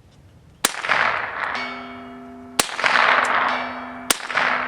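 Three shots from a Ruger 10/22 Takedown .22 LR rifle, about two and then one and a half seconds apart, each a sharp crack with a rumbling echo. A steady metallic ringing follows each shot after a short delay, the sound of a steel target being hit far downrange.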